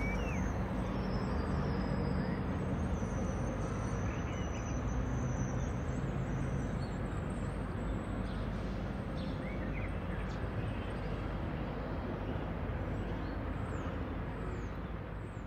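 Steady outdoor background noise with a few faint short chirps, fading out at the end.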